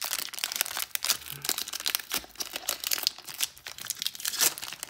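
Foil wrapper of a Pokémon Cosmic Eclipse booster pack crinkling and crackling as it is torn open by hand, a dense run of sharp crackles.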